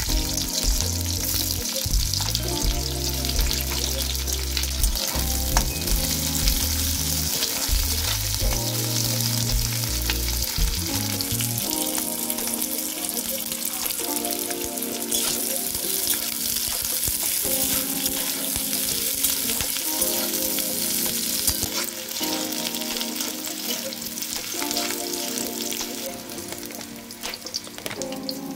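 Sliced onions sizzling in hot oil in an aluminium kadai, with a steel spoon scraping and stirring against the metal. Green chillies, garlic and ginger go into the oil partway through and keep frying.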